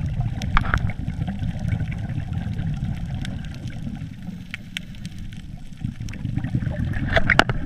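Underwater sound picked up by a GoPro Hero3 Black inside its waterproof housing: a steady low rumble of water, with scattered sharp clicks and a short burst of crackling near the end.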